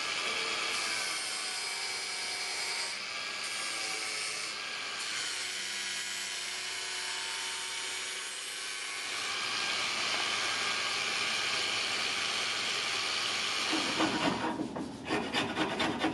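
Angle grinder fixed on a bench with a sanding disc, running steadily while a teak backing block is pressed against it and shaped. About fourteen seconds in it stops and the block is rasped by hand in quick, uneven scraping strokes.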